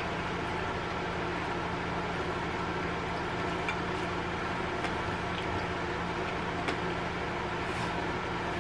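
Steady room hum and hiss at an even level, with a few faint small clicks over it.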